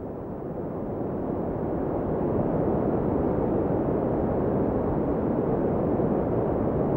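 Sea surf: a steady rushing roar of waves that swells up over the first two seconds, then holds level.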